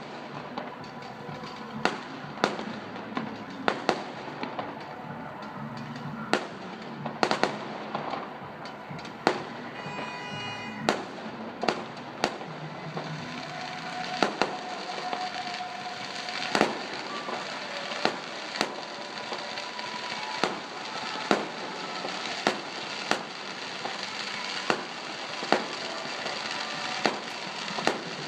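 Fireworks going off: a long run of sharp bangs at uneven intervals, about one a second, over a steady background din.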